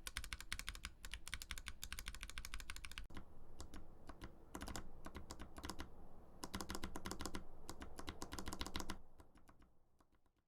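Fast typing on a custom-built Varmilo mechanical keyboard: a dense, quick clatter of keystrokes, with an abrupt cut to a different take about three seconds in. The typing fades out near the end.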